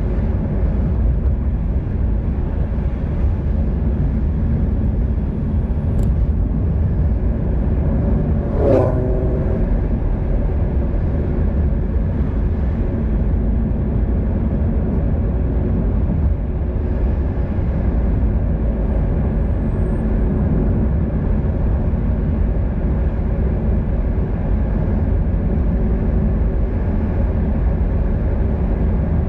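Steady low rumble of wind and road noise, heard from a camera riding along a road on a bicycle. A single sharp click comes about six seconds in, and a short pitched squeal with a slightly falling tone a few seconds later.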